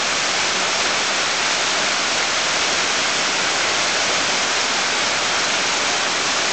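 Gooseneck spa water spout pouring a jet of water into a pool, a steady splashing rush that does not change.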